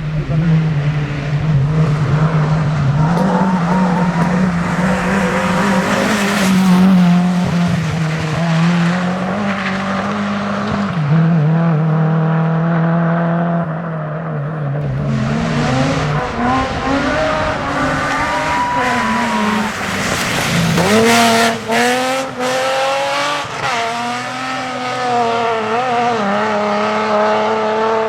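Rally car engine at high revs: a steady note for the first half, then repeated rising revs broken by gear changes.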